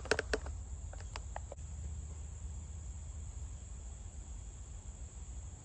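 Steady, high-pitched insect chorus in the woods, with a handful of light clicks and ticks in the first second and a half.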